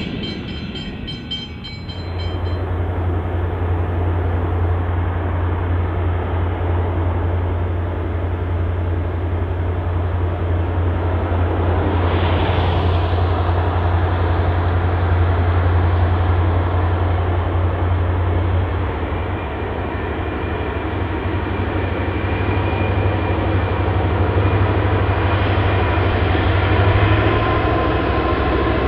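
Diesel-electric freight locomotive of the Victorian C class (Clyde GT26C, EMD two-stroke V16) running as it approaches at the head of a train: a steady low drone that changes a little about two-thirds of the way through.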